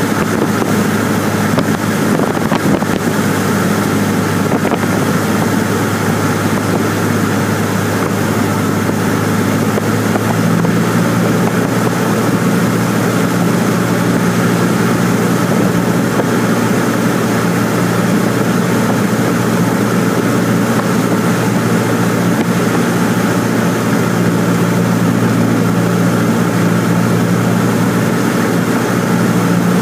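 Cessna 150's Continental O-200 four-cylinder engine and propeller droning steadily in the cabin, with wind noise, as the plane descends on approach to landing. About ten seconds in, a higher tone joins the drone.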